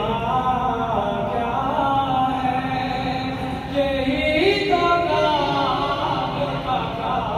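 A man singing a naat, an Urdu devotional poem, solo and unaccompanied, in long held notes that bend and glide in pitch.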